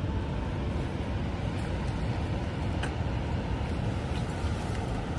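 Steady rushing roar of nearby river rapids, an even dense noise with most of its weight low down.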